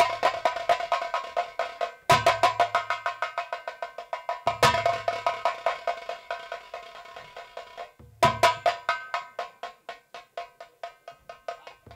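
Drum accompaniment played in fast rolls: phrases of rapid sharp strokes, each opening with a deep stroke and dying away over a couple of seconds, with a ringing pitched tone, starting again about every two to four seconds.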